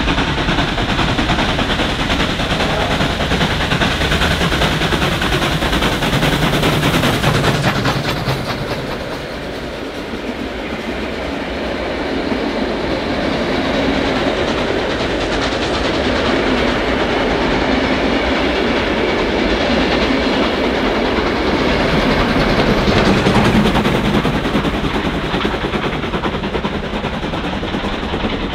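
Two Victorian Railways steam locomotives working hard up a 1 in 50 grade, with rapid, steady exhaust beats. The K-class engine's chuffing passes close by, and the sound eases as the red passenger carriages roll past. It then builds again as the second locomotive, the 1889 Y-class Y112, works by near the end.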